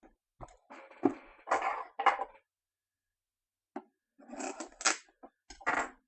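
Trading cards and their packaging being handled on a table: a run of taps, light knocks and rustles in two bursts, with a pause between them.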